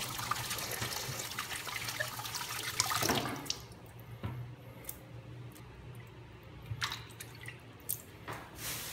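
Tap water running into a ceramic sink and over rinsing hands, shut off about three seconds in. After that the water left in the basin drains, with scattered drips and small knocks.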